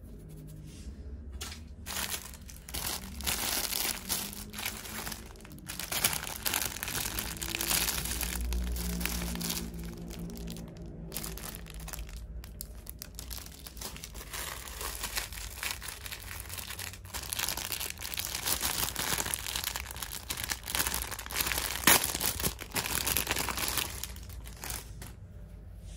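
Clear plastic packaging crinkling and rustling as items in it are handled and unwrapped, with irregular sharp crackles. The loudest crackles come about six seconds in and near the end.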